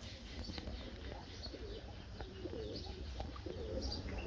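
Pigeons cooing, several low wavering coos repeated one after another.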